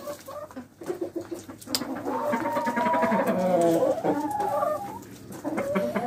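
Chickens clucking, several calls overlapping, loudest from about two to four and a half seconds in, with a few light clicks among them.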